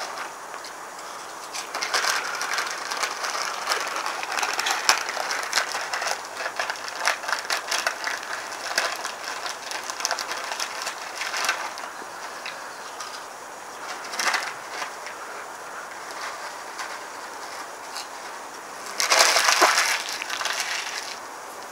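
Prawn cocktail crisps being crunched and chewed close to the mouth: a dense run of fine crackling crunches from about two seconds in until about twelve, then a few more, with a short louder noisy burst near the end.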